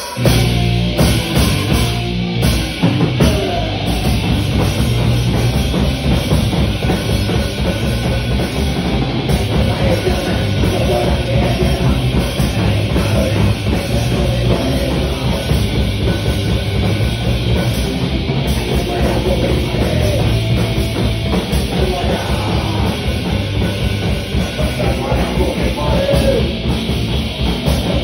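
Punk rock band playing live and loud: electric guitar, bass guitar and a fast drum-kit beat, at a steady driving pace throughout.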